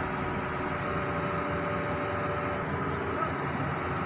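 Hitachi Zaxis 210-5G excavator's diesel engine running steadily, with a steady high whine over it.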